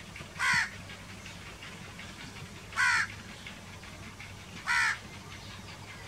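House crow cawing: three short caws, about two seconds apart.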